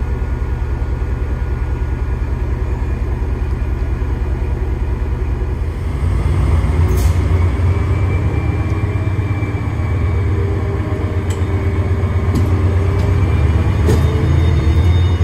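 Class 68 diesel-electric locomotive's V16 diesel engine running with a heavy, steady low rumble as the locomotive rolls slowly past, the engine growing louder about six seconds in.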